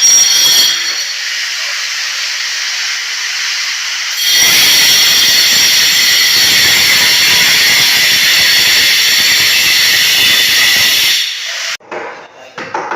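Angle grinder running against the old concrete bed under lifted floor tiles, roughening it so new cement will grip. It whines more lightly at first, then bites in with a loud, steady hiss from about four seconds in, and cuts off abruptly a second before the end.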